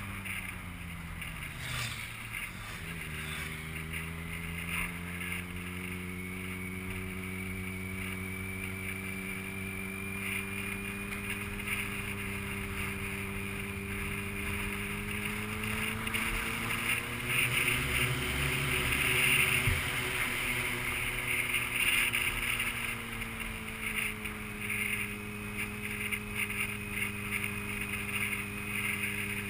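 Vehicle engine running steadily with wind and road noise. Its pitch drops over the first few seconds, rises a little about halfway through, then settles again.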